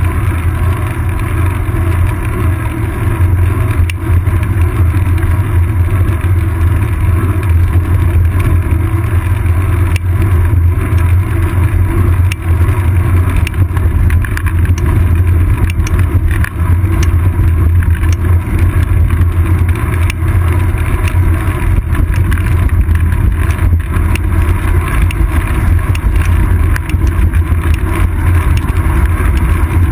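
Steady low rumble of wind and road vibration on a seat-post-mounted GoPro Hero 2 camera as the bicycle rolls along an asphalt road, with a few faint ticks from bumps in the road.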